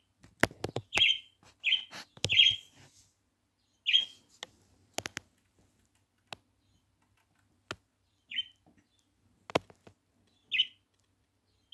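A bird giving short, sharp chirps every second or two, mixed with scattered sharp clicks and taps.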